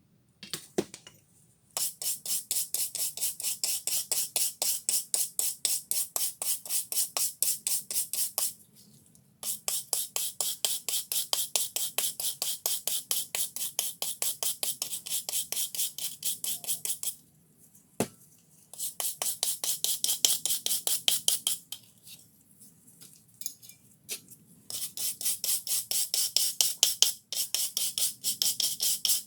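Rapid back-and-forth hand strokes of an abrasive tool scraping the rusted steel of an old dengle hammer, about four or five strokes a second, in four runs with short pauses between them.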